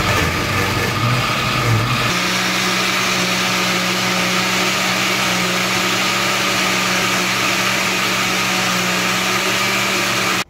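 Countertop blender with a glass jar running at high speed, blending chopped cabbage and water into juice. The motor churns roughly for the first two seconds, then settles into a steady, even hum.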